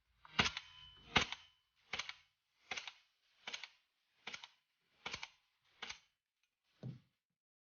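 Marushin M1 Garand gas-blowback airsoft rifle firing eight shots in steady semi-automatic succession, about one every three-quarters of a second, the first two loudest. A single duller knock follows about a second after the last shot.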